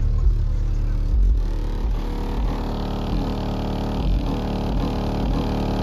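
A pickup truck's engine running steadily, with no revving.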